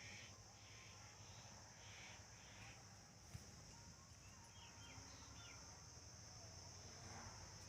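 Faint outdoor ambience: a steady high-pitched insect drone, with a few faint bird chirps about four to five seconds in.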